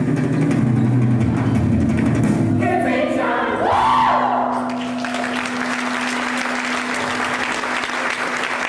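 A live musical-theatre song with group singing and backing music ends on a final note that glides up and falls. The audience then breaks into steady applause about halfway in, while a single held tone lingers beneath it.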